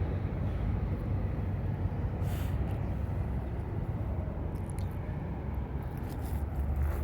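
Road traffic passing: a steady low rumble of car engines and tyres, with a few light ticks about two-thirds through.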